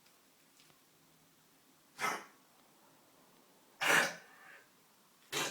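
Labrador retriever coughing with kennel cough: three short, harsh hacks about two seconds apart, the middle one the loudest and longest.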